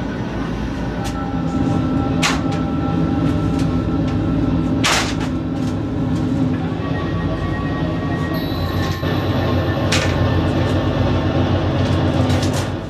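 Steady low mechanical rumble and hum, with sharp knocks about two, five and ten seconds in.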